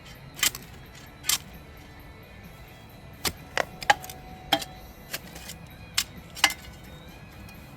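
A string of irregular sharp clicks and knocks, some with a brief metallic ring, from hand work around the cast iron cleanout pipe.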